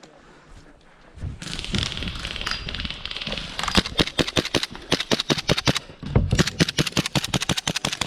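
Airsoft guns firing in rapid bursts of sharp clicking shots, starting about three and a half seconds in, with a brief pause about six seconds in.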